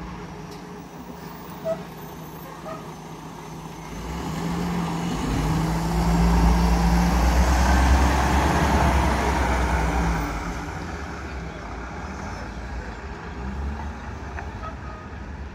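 Diesel engine of a commuter coach bus pulling away, its deep hum rising in pitch and swelling to a peak about halfway through, then fading as the bus drives off down the street.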